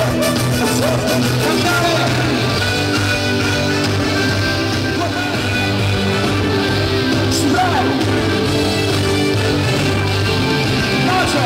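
Amplified live band music playing loud and steady, with a singer's voice over it, heard through a public address system.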